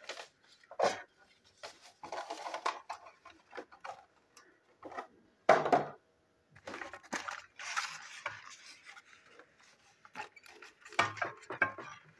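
A cardboard toy box and its packaging being handled: scattered clicks and knocks with short spells of rustling, the loudest knock about five and a half seconds in.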